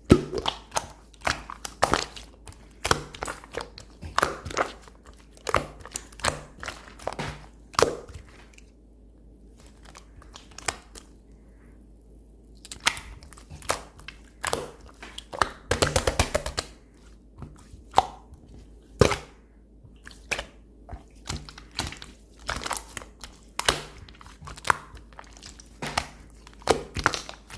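Slime being pressed and squished by hand, giving irregular crackling pops and clicks, with a quieter stretch of a few seconds partway through.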